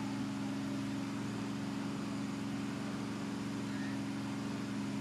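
Steady low hum of a running motor, even and unchanging, with a faint short high chirp about four seconds in.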